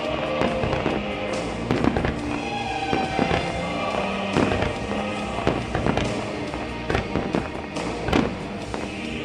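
Aerial fireworks shells bursting in quick, irregular succession, more than a dozen bangs and crackles, over music with held notes playing through loudspeakers.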